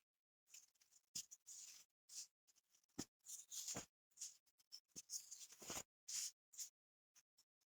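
Packed baking soda being crushed and crumbled in the hands, a quiet run of gritty, crackly crunches in irregular bursts with short pauses, played back at double speed.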